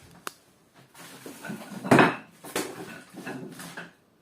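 Small hard objects clinking and clattering as they are handled: a sharp click at the start, then a run of knocks with a brief metallic ring, the loudest about two seconds in.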